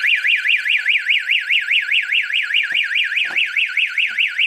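Electronic fire alarm sounder going off with a high, fast warble that sweeps up and down in pitch about six or seven times a second. A few faint clicks sound underneath it.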